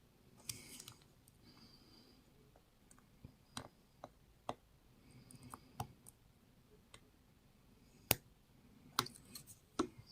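Lock pick and tension wrench single-pin picking a five-pin Ace padlock: faint, scattered metallic clicks and brief soft scraping in the keyway, the sharpest click about eight seconds in.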